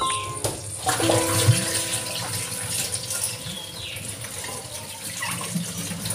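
Water poured from a glass into a pan of chicken pieces on the stove, then a steady hiss of liquid in the hot pan.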